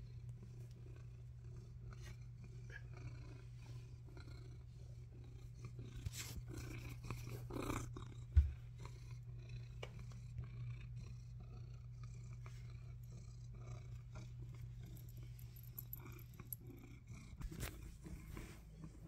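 Orange tabby cat purring steadily, very close to the microphone. About eight seconds in there is one sharp thump, with brief rustling just before it.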